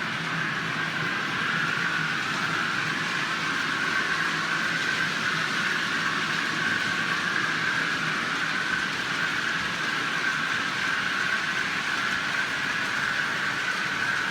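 OO gauge model trains running along the track, a steady whirr of motors and wheels.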